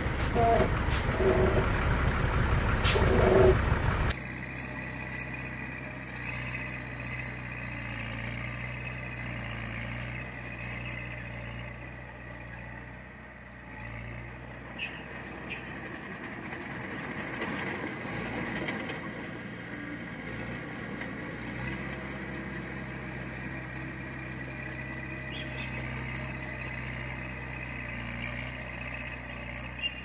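Diesel engine of a heavy earthmoving machine running. It is loud and rough for the first four seconds, then after a sudden drop settles into a steadier, quieter low hum.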